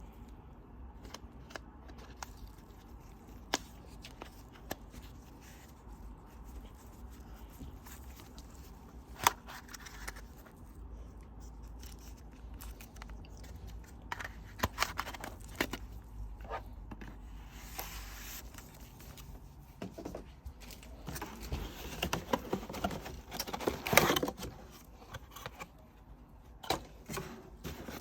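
Packaging being handled during an unboxing: scattered taps and clicks, then a denser stretch of rustling and scraping about three-quarters of the way through.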